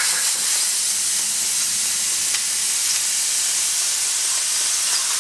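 Compressed-air blow gun hissing steadily as it blasts flaking clear coat off a car's painted door panel.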